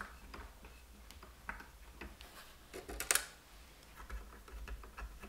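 Faint light clicks and ticks of a hex screwdriver seating and turning small screws into a 3D printer's base frame, with one sharper metallic click about three seconds in.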